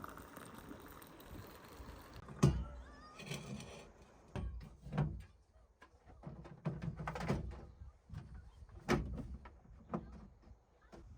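A series of irregular thuds and knocks, as of objects being handled and set down, the loudest about two and a half seconds in.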